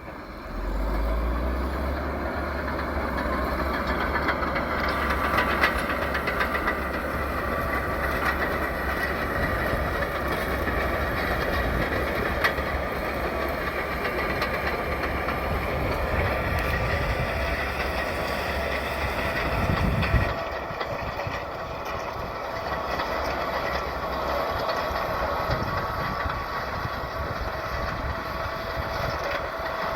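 Caterpillar D8K crawler dozer working, its diesel engine running under load with the steel tracks clanking and squealing as it pushes snow. The low rumble eases somewhat about two-thirds of the way through.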